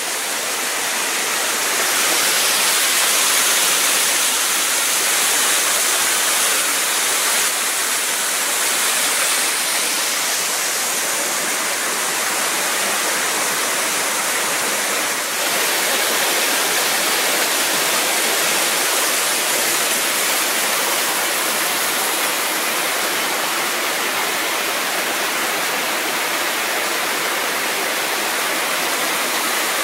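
Waterfall: a steady rush of falling water that swells slightly about two seconds in and then holds even.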